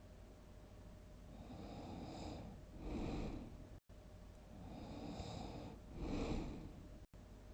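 A person snoring heavily: twice, a quieter rushing breath builds into a louder, rough snore, the two snores about three seconds apart. The sound cuts out for an instant twice.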